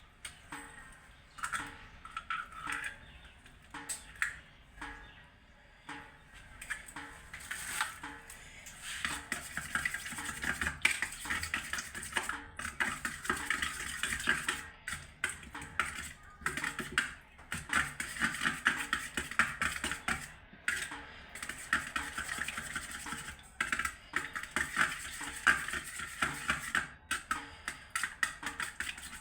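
A utensil stirring and clinking in a bowl, with scattered knocks at first, then a fast, steady run of clicks from about a third of the way in.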